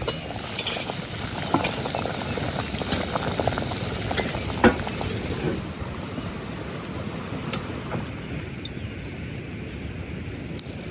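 Cooking sounds: a steady hiss like food frying, with scattered clicks and knocks of a utensil against a pan or pot in the first half. One knock about four and a half seconds in is the loudest.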